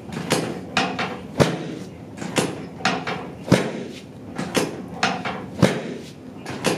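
A steady rhythm of sharp knocks, about two a second, some stronger than others.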